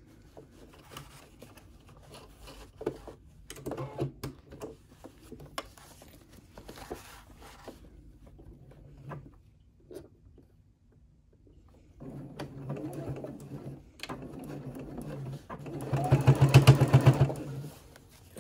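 Electric domestic sewing machine top-stitching through layers of fabric and fleece beside a zipper. It runs in short stops and starts, goes quiet for a few seconds in the middle, then runs steadily, loudest and fastest near the end.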